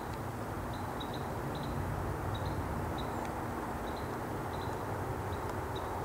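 Outdoor field ambience: a steady low rumble, with short high chirps repeating in twos and threes.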